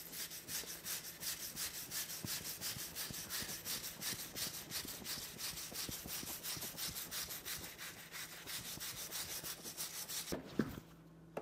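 Hand scraper scraping caked grime off the cast-iron body of an old Beaudry power hammer in quick, even strokes, about four or five a second. The strokes stop about ten seconds in, and a light knock or two follows.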